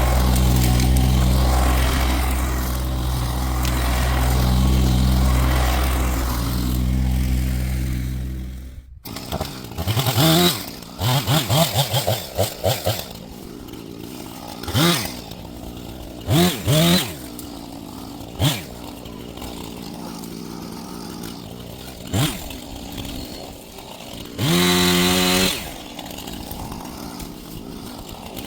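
A low, steady engine runs for about nine seconds and then cuts off abruptly. After that a two-stroke chainsaw is revved in a series of short throttle blips, rising in pitch each time, with one longer rev near the end.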